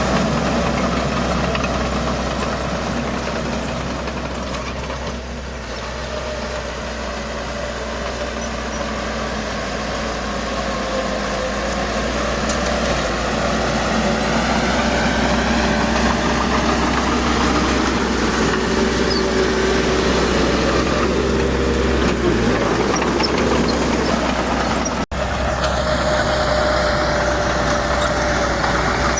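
Heavy diesel machinery engine running under changing load. The note sags about five seconds in and builds back up. A brief dropout comes about 25 seconds in, and after it the engine note is steadier.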